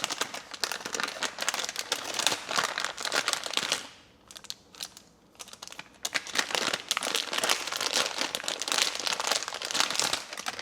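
Plastic packaging crinkling as it is handled and opened: about four seconds of rustling, a two-second lull with a few small clicks, then more crinkling.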